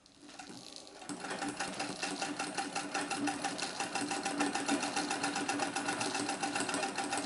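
1927 Singer 66K treadle sewing machine stitching through fabric, its mechanism clicking in a rapid, even rhythm. It starts quietly and picks up to a steady speed about a second in.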